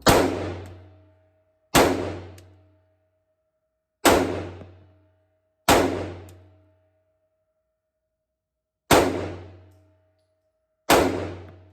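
Six single shots from a 9mm Glock 19 pistol, fired one at a time at uneven intervals of roughly one and a half to three seconds. Each is a sharp crack with a short booming tail and a faint ring.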